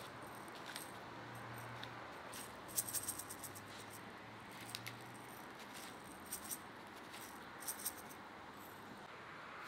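Hand-held spice mill grinding salt and pepper over a salad: short bursts of gritty rattling clicks as the mill is twisted, a few times over.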